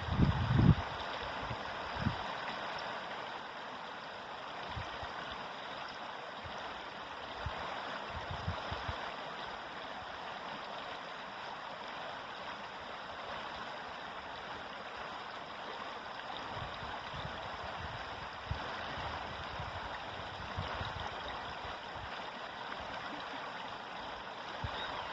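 River water flowing in a steady rush. A few brief low thumps break in, the loudest at the very start and others scattered through.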